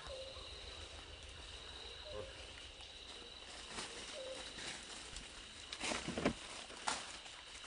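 Forest insects trilling steadily at a high pitch, with a few short faint chirps. Sharp rustling and crackling of leaves and branches come about six seconds in as the macaques shift on the branch, and again about a second later.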